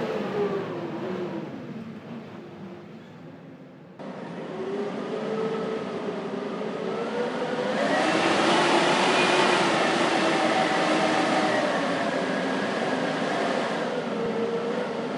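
Blizzard wind howling and gusting, with wavering whistling tones over a steady rush. It dies down over the first few seconds, cuts back in abruptly about four seconds in, and builds to a strong gust about halfway through.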